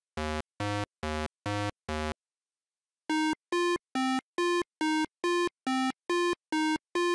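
Retro 8-bit synthesizer notes in a steady beat of about two a second. A low-pitched run stops about two seconds in, and after a second's silence a higher-pitched run begins.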